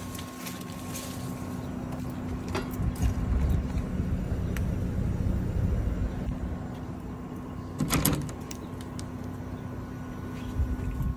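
Outdoor heat pump unit running with a steady hum, mixed with the rustle of a phone being handled close by and a brief knock about eight seconds in.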